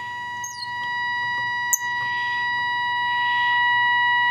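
Steady test tone from the Philips 206A radio's speaker, the signal generator's test signal passing through the IF stage. It grows gradually louder as the IF transformer slug is turned toward peak alignment. One sharp click comes a little before halfway.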